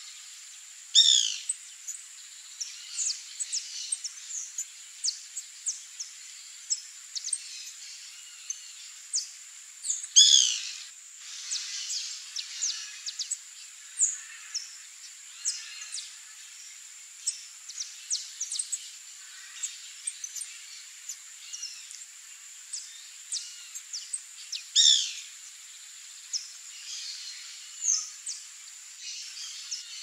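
Wild birds calling in a yard: many short chirps, with three louder calls about a second in, around ten seconds and near twenty-five seconds, over a steady high-pitched whine.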